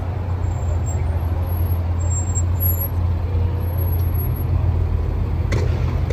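Vehicle engine idling with a steady low rumble, and a short knock about five and a half seconds in.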